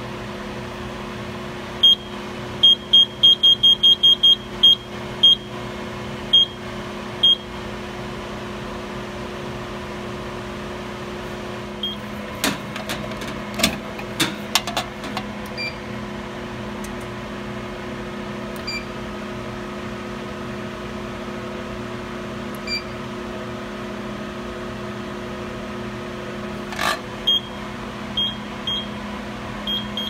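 Simplex fire alarm control panel keypad beeping with each key press: a quick run of about a dozen short, high beeps about two seconds in, a few more scattered, and another handful near the end. Some clicks and knocks midway, over a steady hum.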